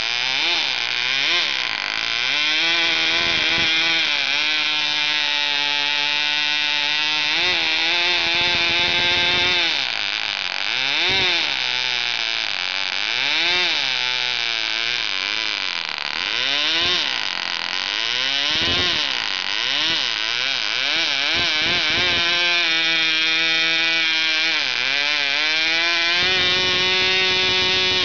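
Cox .049 Black Widow two-stroke glow engine, converted to a Tarno carburettor, running at a high whine and being throttled down and back up again and again, its pitch dropping and climbing every couple of seconds and holding high for a few seconds in places. The engine answers the throttle well; the owner finds it going a little rich as it is throttled up.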